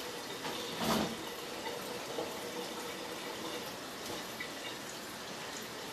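Soft thumps and rustling of sofa cushions and throw pillows being tossed and pushed into place, with one louder thump about a second in, over a steady faint hiss.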